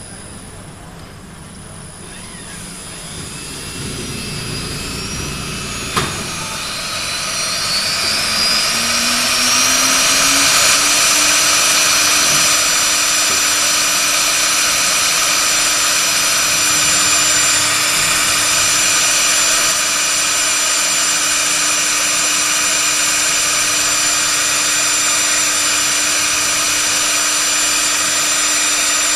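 CNC router spindle motor spinning up: a sharp click about six seconds in, then a whine that rises in pitch for about five seconds and settles into a steady high-pitched run at full speed.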